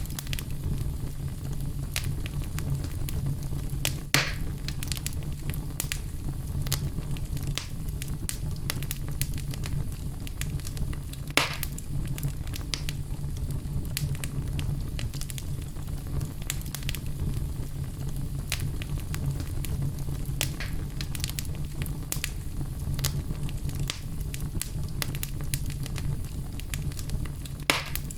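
Fireplace fire crackling over a steady low rumble, with scattered small snaps and three louder pops: one about four seconds in, one near the middle and one near the end.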